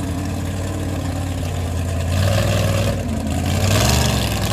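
Engine of a lifted 1940s Chevrolet mega truck on big mud tires running steadily as it drives past, revving up twice, about two seconds in and again near the end.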